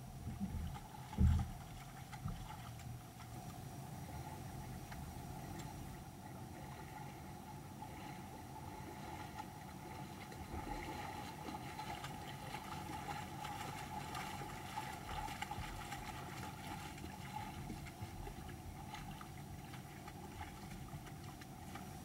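Shallow creek running over stones, with splashing as a black bear and three cubs wade through the water. A short low thump about a second in is the loudest sound.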